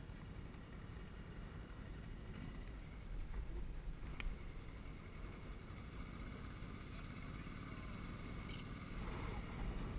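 Low, steady rumble of ATV engines running, mixed with wind buffeting the microphone, with a single sharp click about four seconds in.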